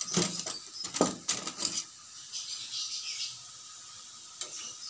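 Metal spoons clinking and rattling in a plastic cutlery rack as one is pulled out, a run of sharp clinks over the first two seconds, then only a faint hiss.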